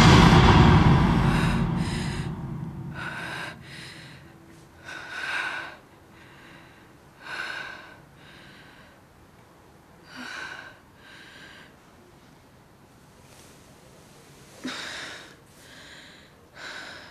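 Music dies away over the first three seconds, then a woman breathes hard in short gasping breaths, in and out, about a dozen of them a second or so apart, spacing out toward the end.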